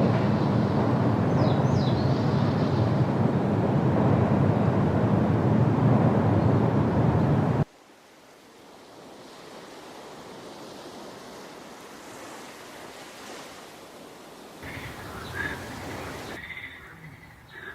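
Steady loud rush of water, with a couple of faint high bird chirps about two seconds in. About eight seconds in it cuts off suddenly to a much quieter outdoor hush, where a few short bird calls come in near the end.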